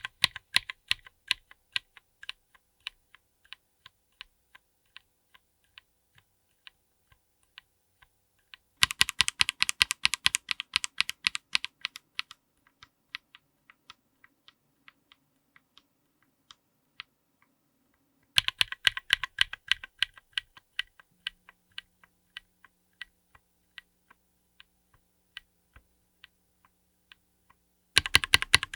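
Linear mechanical keyboard switches under a GMK keycap being pressed, close up: several runs of fast, even keystrokes, each followed by slower single presses.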